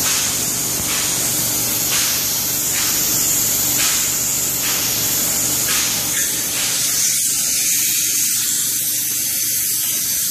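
Spray gun hissing steadily as it sprays Permaseal roof coating onto an RV roof, with a faint pulse about once a second.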